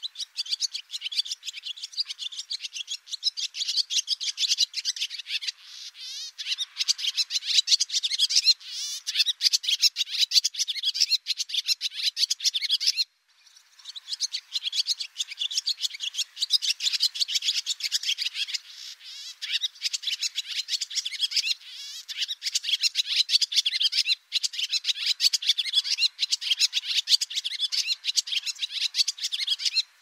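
Barn swallow singing: a fast, continuous twittering of high chirps, with a short break about halfway through.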